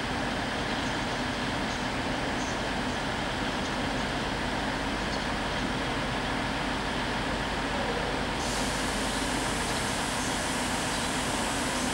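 Virgin Voyager diesel multiple unit moving slowly through the station, its underfloor diesel engines giving a steady drone. About two thirds of the way in, a sharper hiss joins it.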